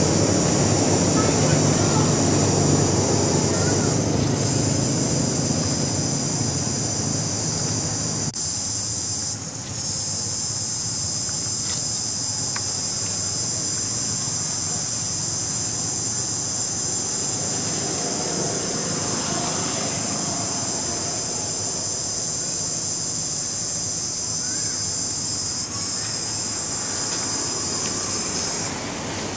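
High-pitched insect chorus, steady, with brief dips about four, nine and twenty-six seconds in. A low rumble runs underneath for the first eight seconds, then stops suddenly.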